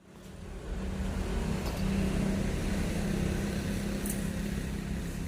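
Steady machine hum with a low drone, fading in over the first second, with a couple of faint clicks.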